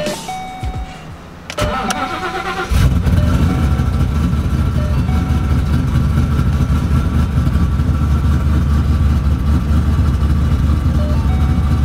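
Cammed, straight-piped Shelby GT500 supercharged V8 being started: the starter cranks briefly about a second and a half in, the engine fires near three seconds, and it settles into a loud, steady idle.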